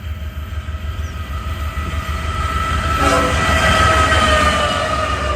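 BNSF diesel locomotives passing at speed up a grade with a deep engine rumble, sounding a chord on the air horn that swells to its loudest a few seconds in. The horn's pitch drops slightly as the locomotive goes by.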